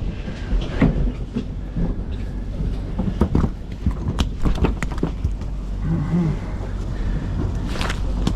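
Fishing boat's engine running with a steady low drone, with a scatter of sharp clicks and knocks, most of them around the middle.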